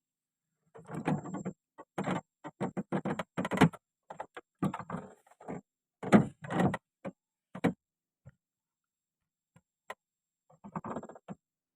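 Irregular clattering and knocking of things being handled, in quick clusters with short pauses between.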